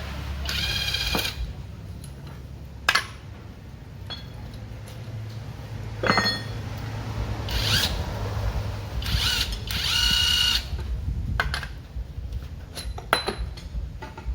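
A hand-held power tool, the kind used to unbolt parts in an engine teardown, runs in several short whining bursts of about a second each. Sharp metal knocks and clinks come between the bursts.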